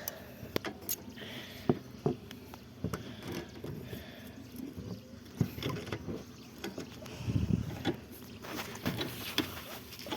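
Scattered light clicks and knocks of parts being handled, with a duller thump about seven and a half seconds in.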